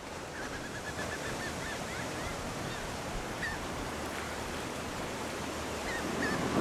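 Steady wash of ocean surf with a bird calling over it: a quick run of wavering high calls near the start, a single call a few seconds in, and two more near the end. The wash grows louder toward the end.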